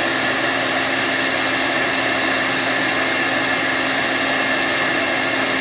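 Electric blower running at high speed, driving air through a venturi air amplifier: a steady whine over rushing air.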